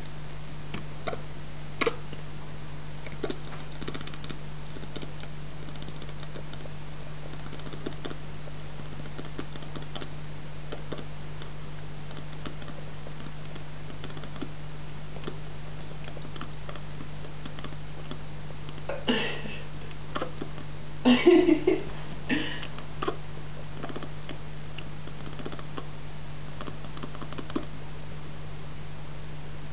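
British Shorthair cat chattering: scattered soft clicks and chirps from its jaw over a steady hiss and low hum, with a louder run of chattering about 19 to 23 seconds in. Chattering like this is typical of a cat fixed on prey it cannot reach.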